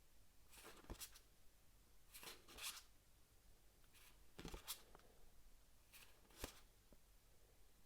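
Game cards being handled one at a time: four soft slides and light taps of card stock as each card is picked up and laid down, spaced about every two seconds.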